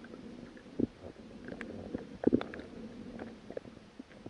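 Muffled underwater sound picked up by a submerged camera: a steady low rumble with a few dull knocks, the loudest a short cluster a little past two seconds in, and some faint clicks.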